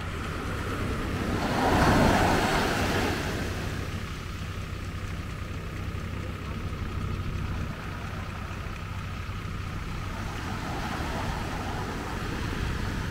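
Surf breaking on a sandy beach over a steady low rumble; one wave swells up loudest about two seconds in, then fades.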